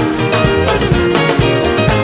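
Loud dance music with a steady beat and guitar lines.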